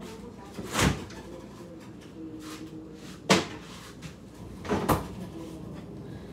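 Stainless steel refrigerator door being opened and shut, heard as three short thumps: one about a second in, a sharp knock a little after three seconds, and the last near five seconds as the door closes.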